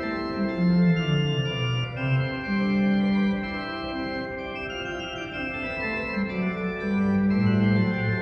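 Juget-Sinclair continuo organ, a small pipe organ, playing held chords over a moving bass line.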